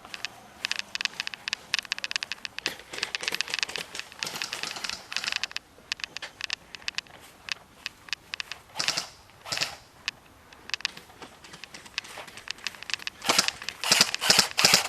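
Airsoft guns firing: dense runs of sharp clicks for the first few seconds, scattered single shots through the middle, and a louder close cluster of shots near the end.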